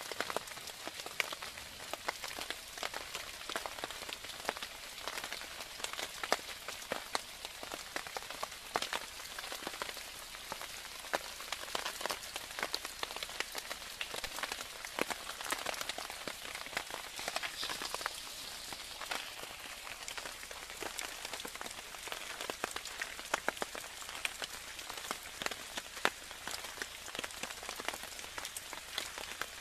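Steady rain, with many close drops ticking sharply, heard from under a tarp.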